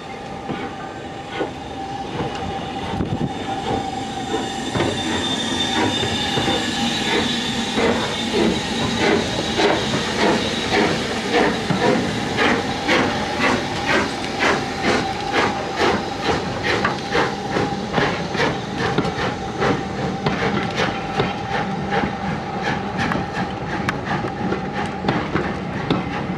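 LMS Royal Scot class three-cylinder 4-6-0 steam locomotive pulling away: steam hiss at first, then a regular rhythm of exhaust beats from the chimney that starts several seconds in and quickens as the train gets under way.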